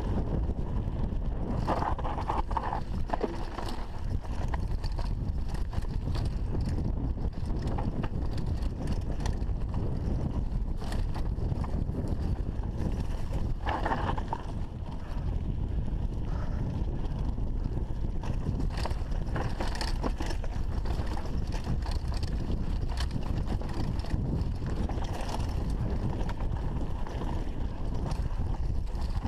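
Mountain bike ridden fast down a rough dirt singletrack: a steady rush of wind on the microphone over the constant rattle and clatter of the bike's chain and frame and the tyres on dirt and stones.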